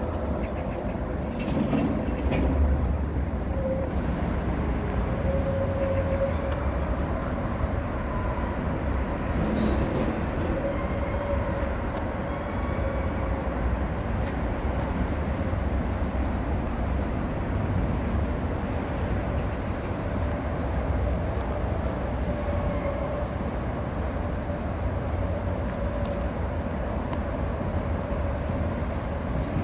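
Steady road traffic noise from vehicles on the surrounding roads and elevated highway, an even, continuous drone heavy in the low end with no distinct events.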